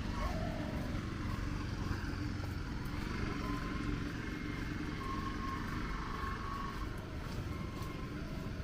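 Steady hum of road traffic on a city street, with faint engine tones coming and going.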